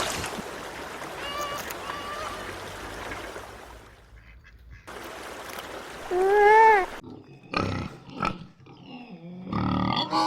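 Short animal-call recordings played one after another over background noise. The loudest is a single call about six and a half seconds in that rises and falls in pitch, with fainter calls in the first few seconds.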